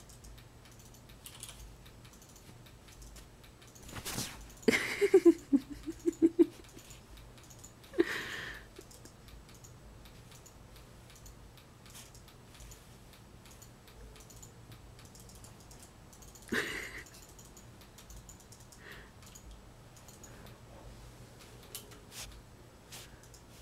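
Fingers scratching and rustling on a quilted duvet, soft scratchy clicks throughout. About five seconds in comes a louder cluster of quick pulses, with shorter louder bursts near eight and seventeen seconds.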